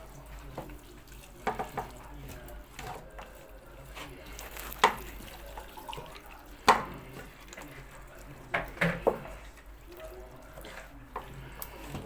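Kitchen tap running into a sink, with a few sharp knocks of things handled in it.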